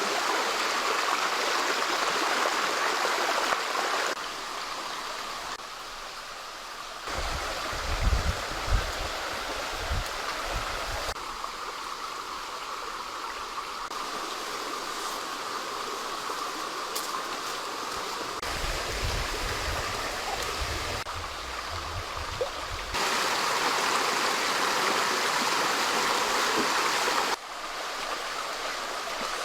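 Water of a stream running steadily, its level and character changing abruptly several times as the shots cut, with a low rumble in two stretches.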